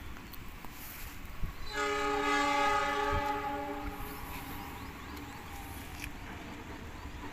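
Train horn sounding one long blast of about two seconds, a chord of several steady tones, fading away gradually as the train approaches along the line.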